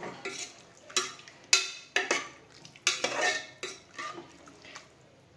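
Metal ladle stirring thick vegetable sambar in a pressure-cooker pot, scraping and knocking against the metal sides and bottom in irregular strokes. The strokes thin out and get quieter near the end.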